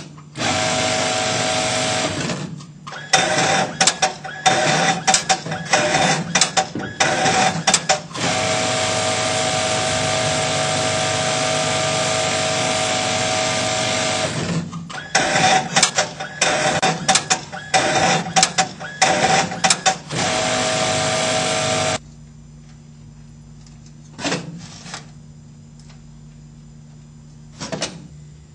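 Mitsubishi industrial sewing machine stitching a pillow-top border, running in long steady stretches broken by rapid stop-start bursts. It stops about three quarters of the way through, and two short clicks follow.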